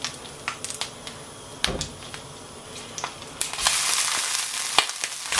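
Chicken sausages being laid into a pan of hot olive oil: a few light knocks and clicks, then frying starts up about three and a half seconds in, sizzling steadily.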